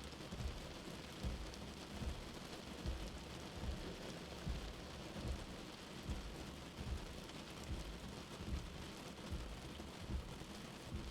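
Steady rain heard from indoors, with a soft low heartbeat pulsing underneath at about one beat every 0.8 seconds.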